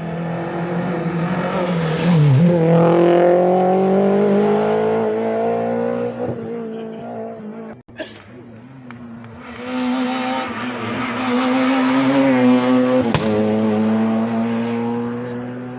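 Two rally cars passing one after the other at full throttle, each engine note climbing steadily in pitch as it accelerates, with a sharp drop and recovery in the first car's note early on as it shifts. The two passes are separated by an abrupt cut about halfway through.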